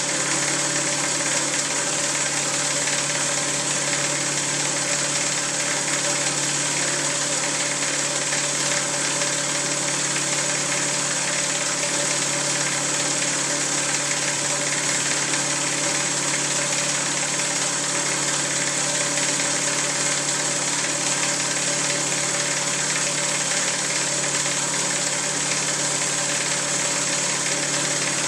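Single-stage rotary piston vacuum pump (US Vacuum RP-150K) running steadily on its electric motor drive: a constant low mechanical hum under a loud hiss.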